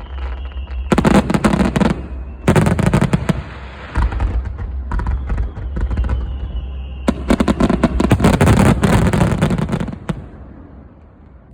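Aerial fireworks going off in rapid volleys of crackling, popping shell bursts, three loud bursts of it, with a faint high whistle before two of them; the show fades out about ten seconds in.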